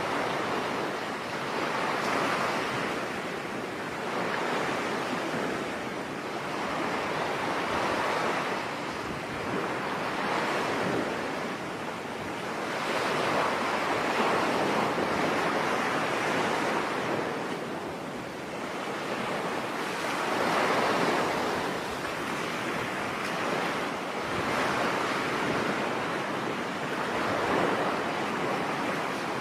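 Ocean waves breaking and washing on a beach, a steady surf that swells and eases every two to three seconds.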